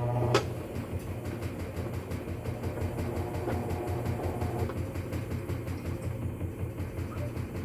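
Whirlpool top-load washer running its spin test: a sharp click about half a second in, then a steady hum from the motor and spinning basket that pulses at a fast, even rhythm. No grinding can be heard.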